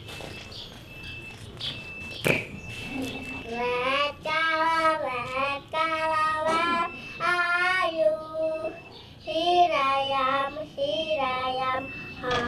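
A child singing a tune in long, held notes, starting about three and a half seconds in; a single sharp click just after two seconds.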